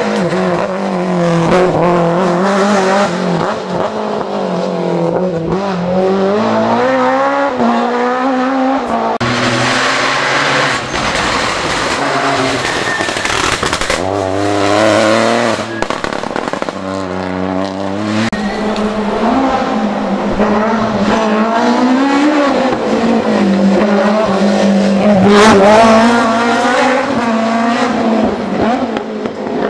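Rally cars on a tarmac stage, among them a BMW M3 E30 with its four-cylinder engine, one after another, revving hard up and dropping back again and again as they brake, change gear and accelerate through the corners.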